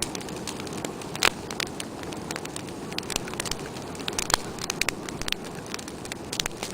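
Wood fire crackling and popping: irregular sharp snaps over a steady low rush of burning.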